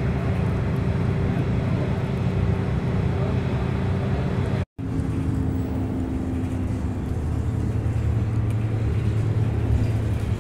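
Steady drone of a road vehicle's engine and road noise heard from inside the cabin while driving, with a low hum. The sound drops out for an instant about halfway through.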